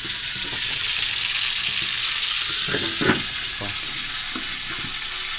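Hot oil sizzling steadily under lidded frying pans, hot dogs and eggs frying in two pans at once. A sharp knock about three seconds in, with a few fainter ones around it.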